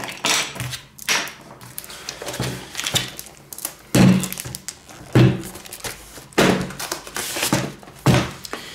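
Cardboard packaging and a glass bathroom scale being handled: rustling with a series of dull thunks, about one a second, as the box parts are lifted and set down.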